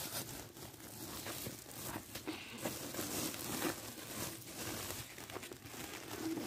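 Woven plastic sack of salt rustling and crinkling as it is gathered and twisted by hand, in an uneven run of small crackles.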